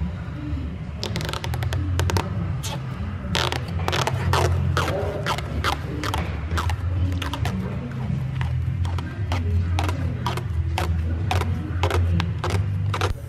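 Irregular sharp clicks and scrapes from hands working at a car's trunk-lid badge, over background music with a deep, pulsing bass.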